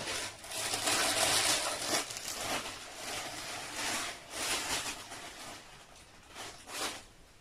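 Thin plastic packaging rustling and crinkling as it is handled, in several bursts, loudest in the first two seconds.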